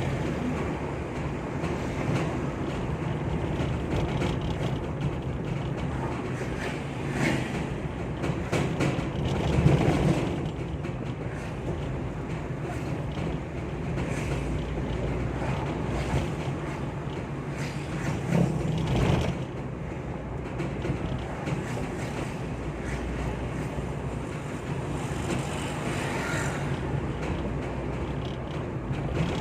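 Ambulance driving, heard from inside: steady engine and road noise with wind, and short rattles and creaks now and then, louder about ten seconds in and again just before the twentieth second.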